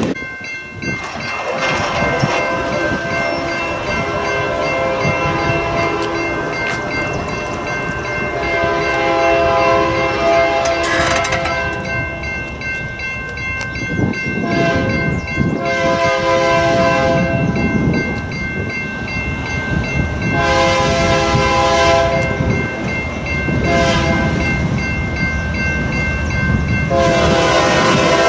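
Union Pacific freight locomotive's air horn sounding a series of about six blasts, each one to three seconds long, as a double-stack intermodal train approaches a grade crossing. Under it are the rumble of the train and a steady ringing from the active crossing signal.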